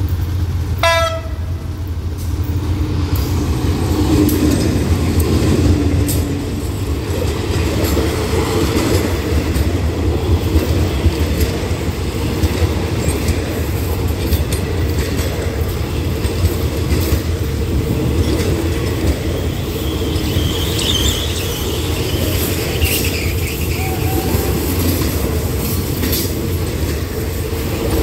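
A short horn toot from a GEA diesel-electric locomotive about a second in. Then the locomotive and its passenger coaches pass close by, a steady rumble with the wheels clicking over the rail joints and some wheel squeal on the curve.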